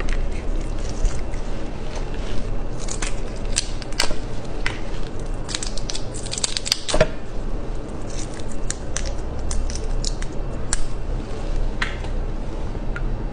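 Shell of a giant red prawn crackling as it is peeled off by hand: scattered sharp clicks and snaps, busiest around the middle, over a steady low hum.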